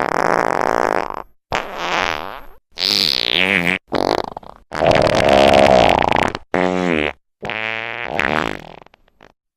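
Farting sound effect: a string of about six separate farts, each about a second long, cut apart by abrupt silent gaps. The burst about three seconds in starts high and drops in pitch.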